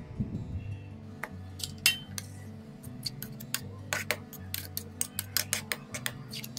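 A steel spoon scraping and clinking inside a stainless-steel mixer-grinder jar as it stirs coarse, still-dry ground coconut chutney, with many irregular sharp clinks. Background music plays underneath.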